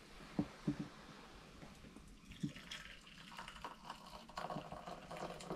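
Water being readied for tea: a few light knocks of handling, then a watery hiss and trickle that grows louder from about two seconds in.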